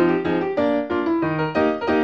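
Piano music: a tune moving through several notes a second over low bass notes.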